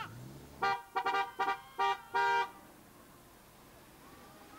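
Car horn honked in a quick series of about six short toots, the last one a little longer.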